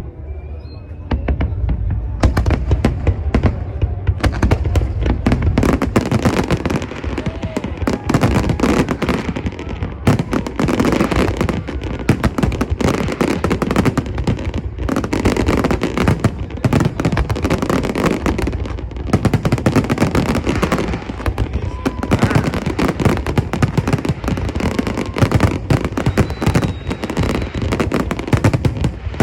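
Fireworks display: a dense, unbroken run of bangs and crackling that begins about two seconds in.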